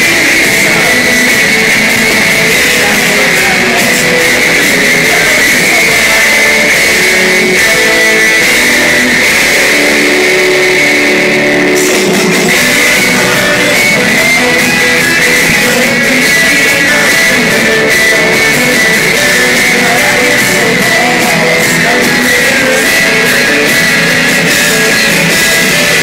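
Live rock band playing an instrumental passage with electric guitars and a drum kit, loud and steady without a break.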